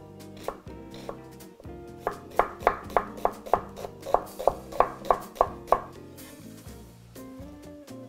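Chef's knife chopping an onion on a wooden cutting board: about a dozen quick, even strokes, roughly three a second, that stop about two seconds before the end. Light background music plays underneath.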